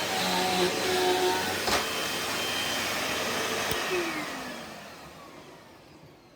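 Hoover Elite Rewind Plus upright vacuum running steadily. It is switched off with a click near the middle, and the motor winds down, its whine falling in pitch and fading over the last couple of seconds.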